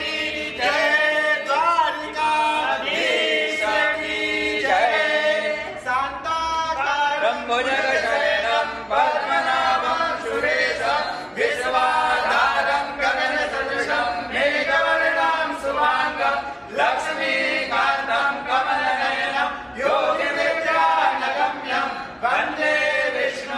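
A group of voices singing a Hindu devotional hymn together before a home shrine.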